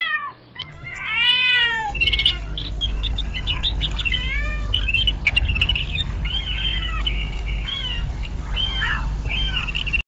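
AI-generated sound effect from AudioCraft's AudioGen model for the prompt "cat meowing, bird chirping": a cat meows about a second in, then birds chirp in quick short calls over a steady low rumble.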